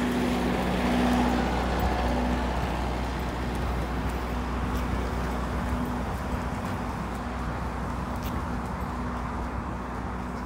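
Street traffic noise with a steady low hum from an idling vehicle engine. The hum is strongest at first and fades after a few seconds.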